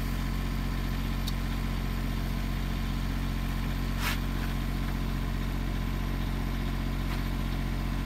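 The minivan's V6 engine idling steadily. A single short click comes about four seconds in.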